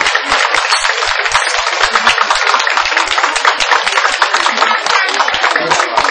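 Crowd applauding: many hands clapping fast and irregularly.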